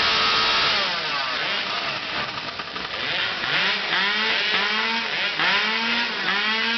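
Chainsaw engine running and being revved, its pitch rising and falling in repeated throttle blips about once a second in the second half.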